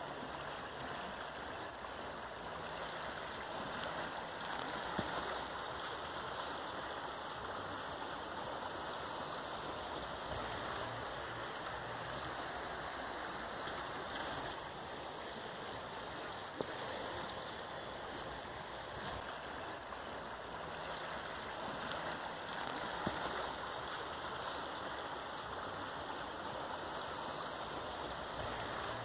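Steady rushing of flowing stream water, with a few faint brief clicks.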